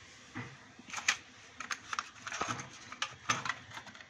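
Irregular light clicks and taps of plastic geometry instruments and a metal geometry-box tin being handled on a table, a few knocks a second at times and busier in the second half.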